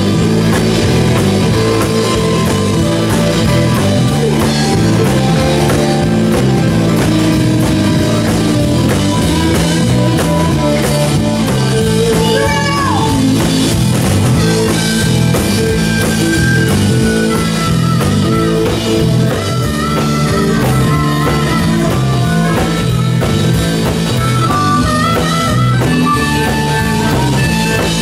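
Live rock band playing an instrumental section: electric guitars over a steady drum kit, with a lead line that bends in pitch about halfway through.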